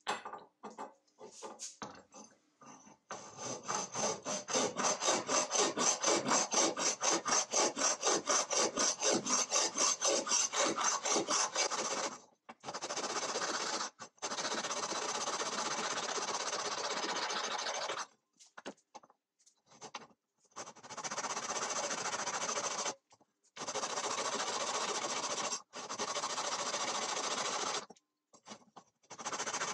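Hand file rasping across a cast aluminum vise jaw, first in quick, even strokes, then in long unbroken stretches of filing broken by short pauses.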